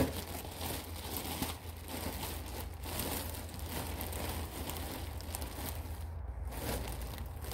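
Plastic packaging crinkling and cloth rustling as a cotton robe is pulled out of its bag and unfolded by hand, over a low steady hum.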